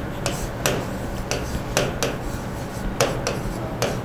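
Marker pen writing on a whiteboard: a quick run of short strokes, about two a second, over a steady low hum.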